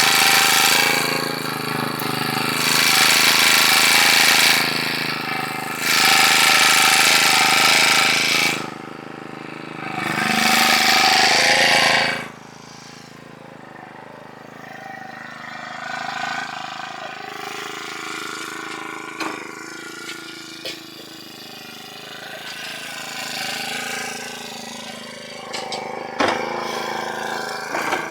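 Engine-powered post driver hammering a fence post down in four bursts of a second or two each. Between and after the bursts its engine runs quietly at idle, with a few light knocks near the end.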